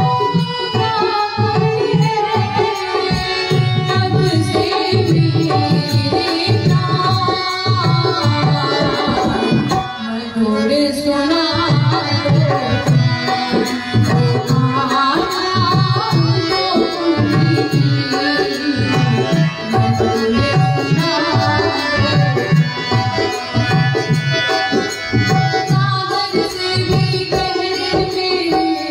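Devotional bhajan music: tabla playing a steady rhythm under a sung melody.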